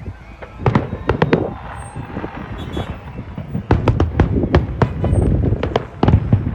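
Fireworks bursting overhead: a rapid, irregular volley of sharp bangs and crackles, with a dense flurry about four seconds in, over a steady outdoor rumble.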